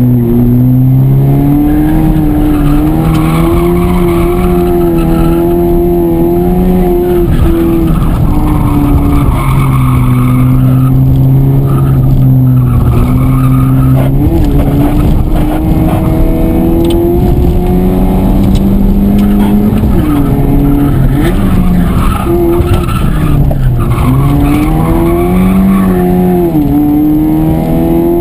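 Honda Civic rally car engine driven hard, heard from inside the cabin. Its pitch rises and falls with throttle and gear changes, dropping at shifts about 23 and 27 seconds in.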